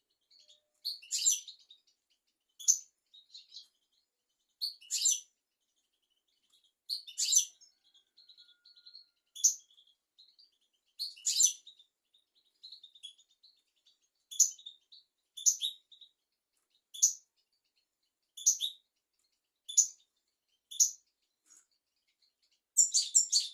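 European goldfinch singing: short, bright twittering phrases every second or two, then a dense run of rapid twittering near the end.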